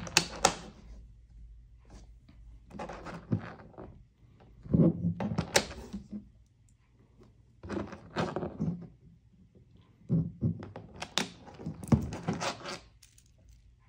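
A carbon fiber link watch band and watch clattering and knocking against a desk as they are handled, turned over and set down. There are five clusters of clicks and thunks a couple of seconds apart.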